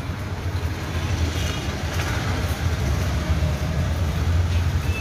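Outdoor street noise carried by a heavy, steady low rumble, with no clear speech.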